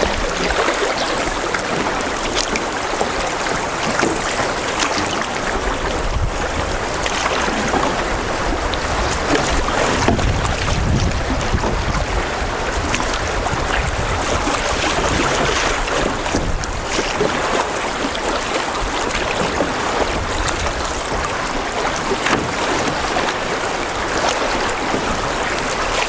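Fast, shallow river water rushing and churning over a riffle, heard at water level from a canoe running down it. There is a steady loud rush with some low wind rumble on the microphone, strongest about ten seconds in.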